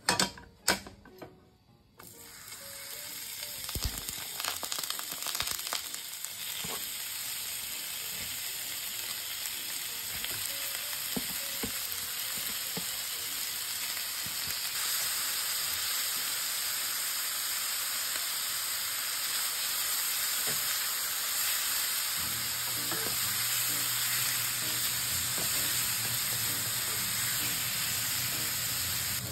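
Thinly sliced beef sizzling in hot oil in a nonstick frying pan, stirred with chopsticks. The steady sizzle starts about two seconds in as the meat goes into the pan, after a few sharp clicks, and a faint low hum joins near the end.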